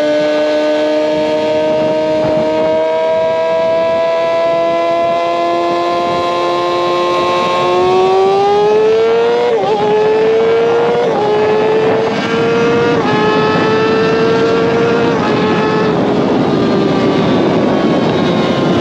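Kawasaki ZX6R's inline-four engine under way, its note climbing steadily for about nine seconds. It then shifts up: the pitch drops sharply at each change, about ten and eleven seconds in, then once more a couple of seconds later. After that it cruises at a fairly steady note that eases down near the end.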